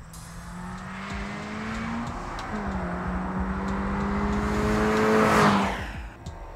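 2022 Toyota GR86's 2.4-litre flat-four engine accelerating past at speed. Its note climbs, dips briefly about two seconds in, then climbs again to its loudest as the car goes by, and drops in pitch and fades just before the end.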